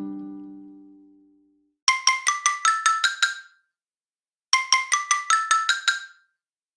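Samsung Galaxy S5 stock ringtone: a bright marimba-like phrase of about eight quick notes stepping upward in pitch, played twice with a short gap between. At the start, the previous acoustic-guitar ringtone fades out.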